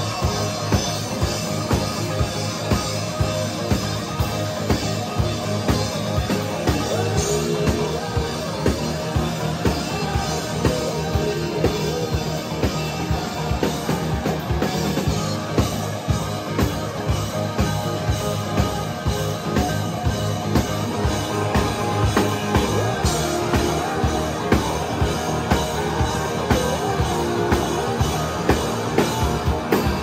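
Live rock band playing: a drum kit keeps a steady beat under electric guitar and bass, with a singer's vocals.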